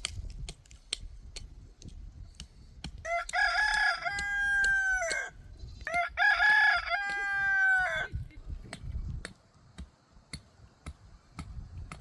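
A rooster crowing twice, each crow about two seconds long and dropping in pitch at its end, with faint clicks around them.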